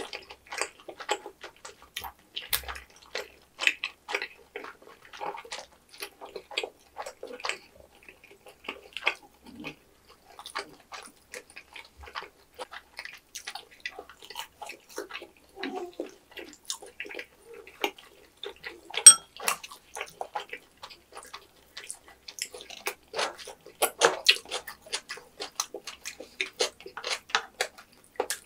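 Close-miked chewing of chewy tteokbokki rice cakes and fried food: a dense run of short smacking and clicking mouth sounds, with one sharp, louder click about two-thirds of the way through.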